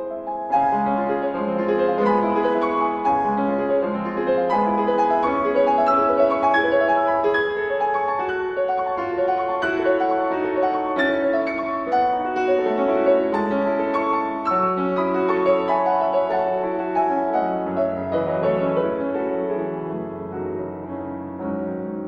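Background piano music, a flowing piece with notes played one after another in quick succession.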